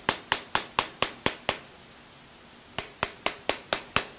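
A small metalworking hammer tapping a hand-held punch against metal, with sharp metallic taps about four a second. A run of seven taps is followed by a pause of over a second, then six more.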